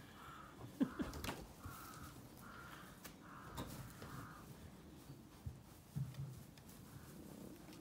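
Short rough animal calls, about one a second over the first four seconds, with a few sharp knocks among them and faint movement in the straw.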